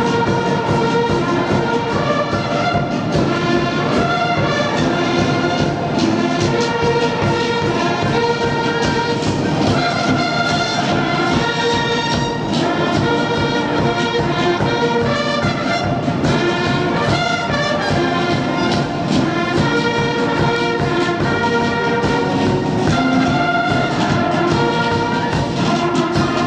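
Massed military band and bugles playing, with brass instruments to the fore.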